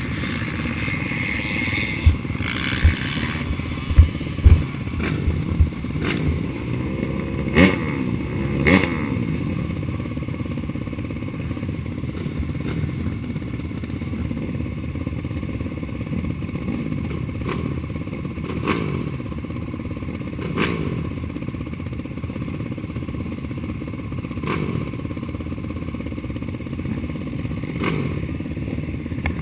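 Race ATV engine running hard on a dirt track, its pitch rising and falling with the throttle and gear changes, heard close up from an onboard camera. Sharp thumps and clatter from the machine hitting bumps and landing jumps come several times in the first nine seconds, with lighter knocks later.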